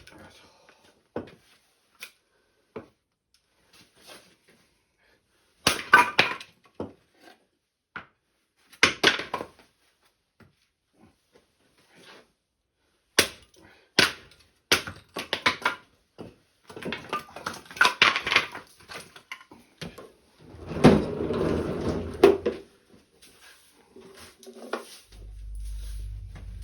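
Irregular cracks, crunches and knocks, some in quick clusters, with a denser stretch of crunching a little past two-thirds of the way through; a steady low hum starts near the end.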